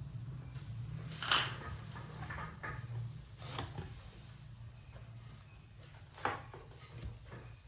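Handling sounds from unboxing a low-profile mechanical keyboard: scattered light knocks and scrapes, the loudest about a second in, about three and a half seconds in and about six seconds in, over a steady low hum.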